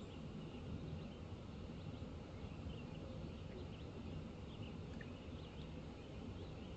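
Steady, static-like hum of the dam below, with faint, scattered short bird chirps over it.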